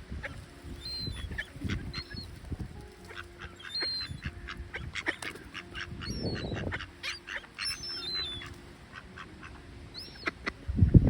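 Gulls and other waterbirds calling over one another in many short cries, with gusts of strong wind rumbling on the microphone.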